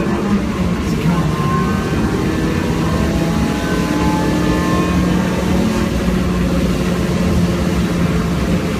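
Car engine running steadily, heard from inside the cabin, with the hiss of tyres on a wet track.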